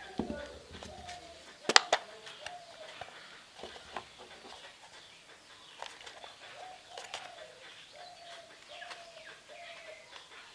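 A pigeon cooing in repeated, gently rising and falling phrases, with a few sharp clicks and taps from handling the multimeter and screwdriver. The loudest click comes about two seconds in.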